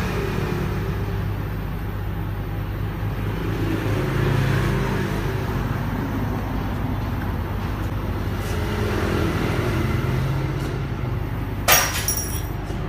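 Steady low mechanical hum, with one sharp click and a brief ring near the end.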